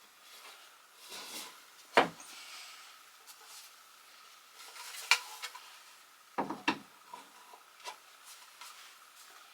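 Wooden closet shelf boards being handled: scraping and rubbing with a few sharp knocks, the loudest about two seconds in, and a quick pair about two-thirds of the way through.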